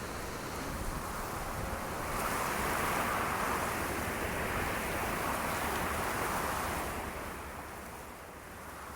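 Blizzard wind blowing as a steady rush of noise, swelling in a strong gust about two seconds in and easing off near the end.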